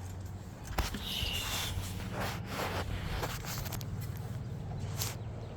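Irregular rustling and scattered clicks, like movement on the ground close to the microphone, over a steady low hum, with a brief high chirp about a second in.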